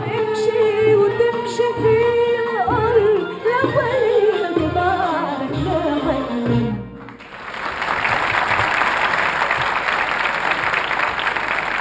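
A woman sings the closing phrase of an Arabic song with an orchestra, her voice sliding down in pitch and ending about seven seconds in. The audience then breaks into applause, which carries on steadily to the end.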